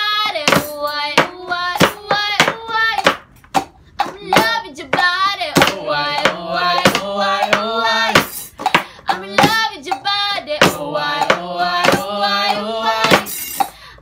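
Voices singing a melody in sustained notes over a steady beat of sharp percussive hits played on improvised household-object instruments.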